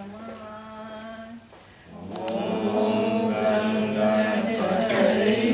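A group singing a Hindu devotional bhajan. A single held note comes first, then after a brief lull, many voices come in louder about two seconds in.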